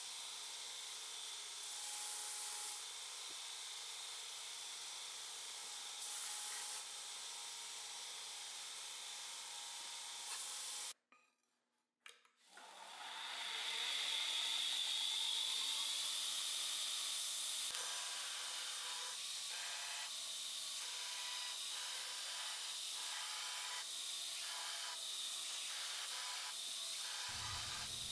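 Belt grinder running with a steel plane iron being ground flat against the abrasive belt: a steady rasping hiss. It cuts out for about a second and a half partway through, then comes back louder with a high whine, and in the second half the blade is worked against the belt in short repeated strokes.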